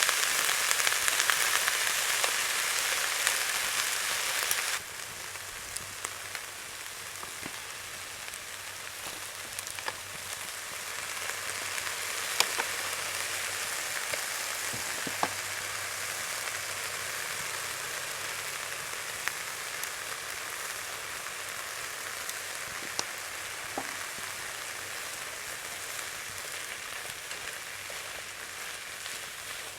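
Food sizzling as it fries in a pan over a wood fire. The sizzle drops abruptly to a quieter, steady level about five seconds in, with scattered sharp pops throughout.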